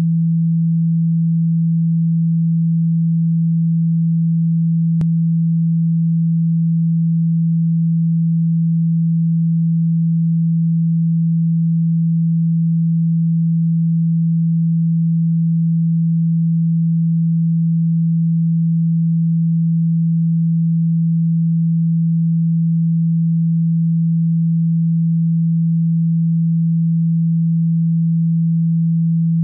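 Speaker-cleaner sound: a single low pure tone held steady without change, played to vibrate water and dust out of a phone speaker.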